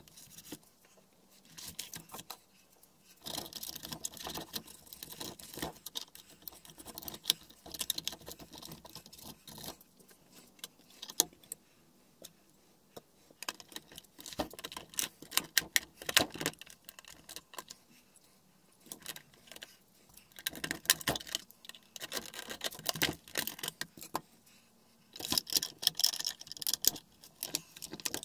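Clicks, taps and rattles of a Nespresso CitiZ coffee machine's plastic housing and internal parts being handled and fitted back together, with tools set down on the workbench. The clicking comes in spells with short quiet gaps.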